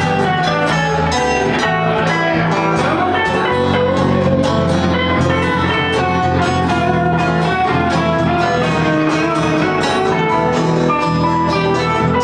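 Live band playing on electric and acoustic guitars, with a strong bass line and steady strumming.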